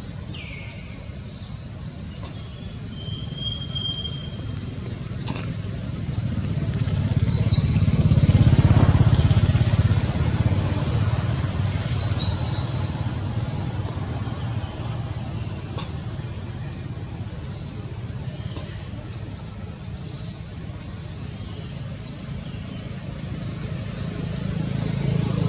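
A motor vehicle's engine rumbling, swelling to its loudest about a third of the way through and then fading, with many short bird chirps over it.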